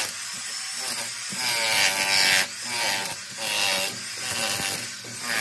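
Electric demolition hammer with a chisel bit hammering into a tiled bathroom wall, chipping away the ceramic tiles and the plaster behind them. It runs in several bursts, loudest about two seconds in.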